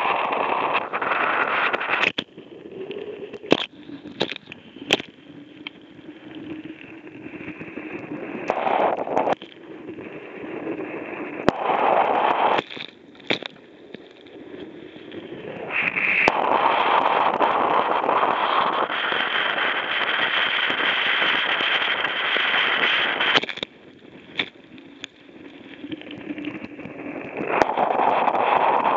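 Wind gusting over the microphone and water rushing past a Hobie catamaran's hull, loud for stretches and dropping away in between, with scattered sharp clicks and crackles.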